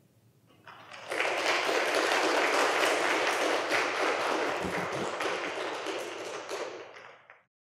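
Audience applauding, swelling about a second in and dying away near the end before cutting off.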